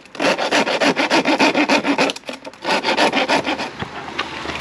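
A hand rasp filing the freshly cut end of a black plastic 4-inch soil pipe in quick back-and-forth scraping strokes, deburring the cut edge. The strokes pause briefly about two seconds in, resume, and stop shortly before the end.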